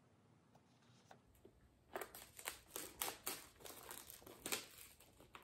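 Thin plastic wrap crinkling and crackling as it is peeled off a small cardboard product box, in quick irregular crackles that start about two seconds in.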